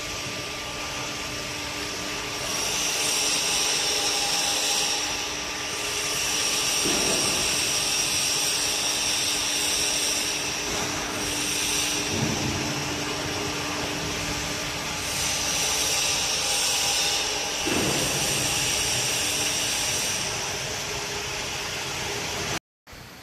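Double scissor parking lift's drive motor running steadily as the platform rises: a constant hum and whine with a high hiss that swells and fades every few seconds. The sound cuts off suddenly near the end.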